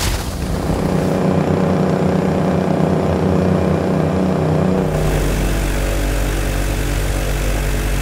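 Outboard motor of a bass boat running steadily at speed. About five seconds in it gives way to an airboat's engine and propeller running, with a deeper rumble.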